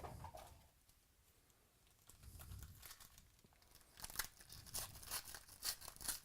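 Faint crinkling and tearing of a trading-card pack wrapper, with a run of light ticks from about four seconds in as the cards are handled.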